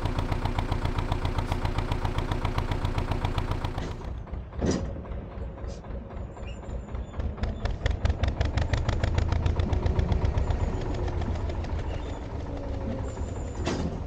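Narrowboat diesel engine running under way, giving a steady, even chug. A sharp knock comes about a third of the way in and another near the end.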